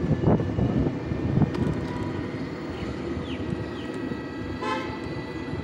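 Steady road and wind noise from riding an electric scooter through city traffic, with one short horn toot about four and a half seconds in.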